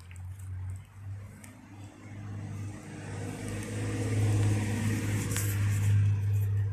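A motor vehicle going by: a low engine hum that grows louder over several seconds, then begins to ease near the end.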